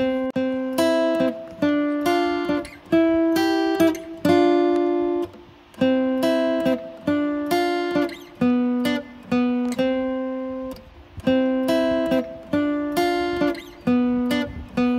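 Background music: a plucked guitar melody, single notes picked about twice a second and each left to ring.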